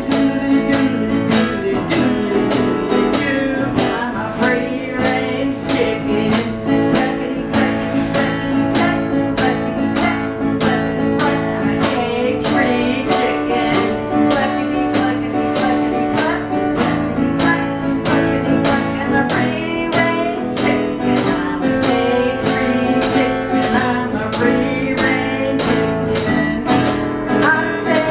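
Live guitar-and-drums duo playing a song: strummed guitar over a steady drum-kit beat of about two strokes a second.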